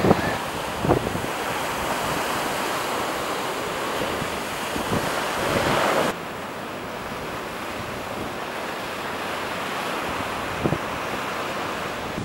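Steady wash of ocean surf with wind buffeting the microphone, and a few brief gusts. The noise drops in level and loses some of its hiss about halfway through.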